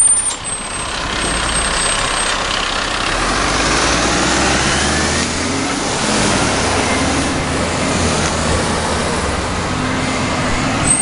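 Side-loader garbage truck's diesel engine running close by as the truck drives past and pulls away, its pitch rising in places.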